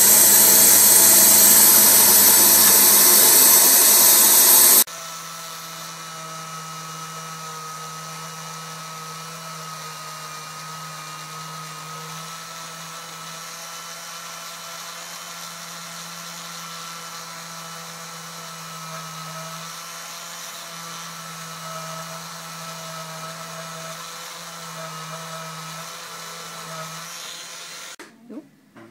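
A loud, steady machine noise cuts off suddenly about five seconds in. Then a small electric rotary drill with a thin bit runs steadily, quieter, boring a hole into an amber stone, and stops near the end.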